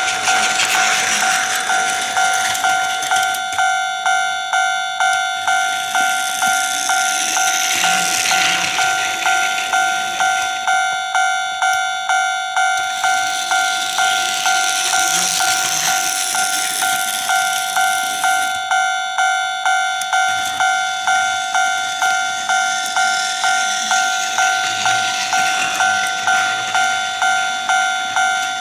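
Electronic Japanese level-crossing bell from a Plarail toy arch crossing modified to ring, sounding its 'kan kan' ding in quick, even beats. Over it, the hissing rattle of battery-powered Plarail toy trains swells and fades several times as they pass.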